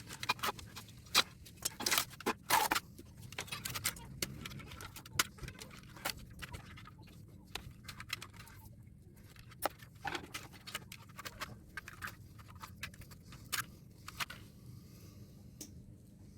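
Irregular metallic clinks, taps and scrapes of hand tools and loose parts as an air-conditioner condenser unit is dismantled for scrap, busy at first and thinning out toward the end.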